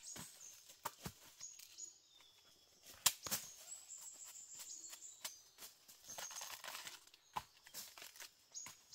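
Husk sheaths being peeled and torn off a freshly cut bamboo shoot, with dry tearing and crackling and several sharp knife taps and knocks, the loudest about three seconds in.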